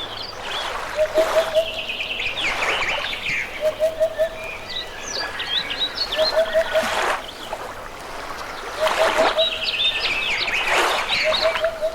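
Birds chirping and singing over the steady rush of a river. A short, low call of three or four quick notes repeats about every two and a half seconds, between swells of rushing water.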